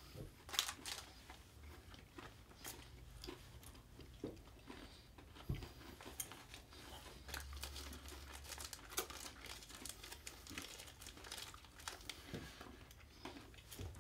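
Faint crinkling of small candy-bar wrappers being handled and opened, mixed with chewing of chocolate bars with crunchy shortbread bits, heard as scattered small crackles and clicks.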